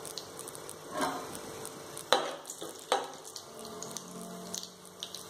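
Mustard seeds and urad dal sizzling in hot oil in a metal kadai, with many faint crackles as the seeds begin to pop. Three louder knocks come about one, two and three seconds in.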